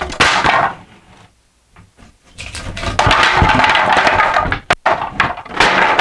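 Pallet-wood boards being handled, knocked together and slid against each other, with clattering knocks and a longer stretch of scraping in the middle.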